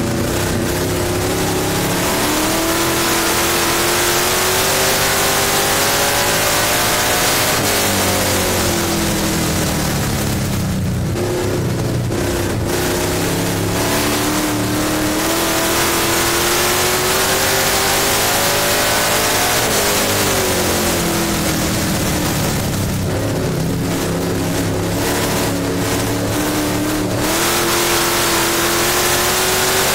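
Dirt-track stock car's engine running hard, heard from inside the cockpit: its pitch climbs, falls away and climbs again twice, backing off and getting back on the throttle as the car laps the track. Wind and track noise hiss over it.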